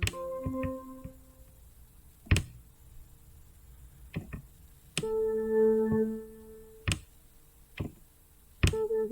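Synthesized sci-fi tones from the Sounds of Mars software instrument, played one at a time: a short tone just after the start, a held tone about five seconds in lasting about a second, and a pulsing, stuttering tone starting near the end. Sharp single clicks come between them.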